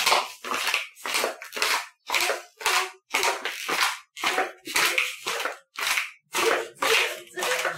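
Footsteps in homemade sandals cut from plastic Coke bottles, the plastic soles striking a tiled floor about twice a second in a steady walking rhythm.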